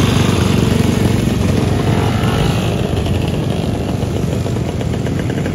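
Several old motorcycles running as they ride slowly past at close range, small step-through and minibike engines among them. From about three seconds in, the fast, even firing of one nearby small engine stands out.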